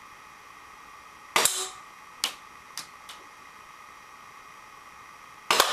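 Two shots from a Tokyo Marui Glock 17 airsoft pistol, about a second in and again near the end, each a sharp crack with the BB striking an empty aluminium drink can and knocking it over. In between come three lighter clinks as the struck can tips and settles.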